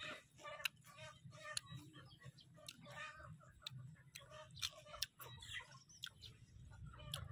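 Chickens clucking on and off in the background, a string of short pitched calls. Short sharp clicks are scattered among them.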